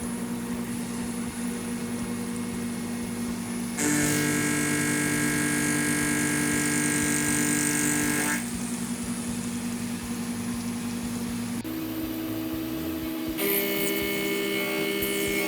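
Haas CNC mill with a 4th axis running a machining program. It gives steady whines that step to new pitches, with louder stretches of cutting noise and high hiss from about four to eight seconds in and again near the end.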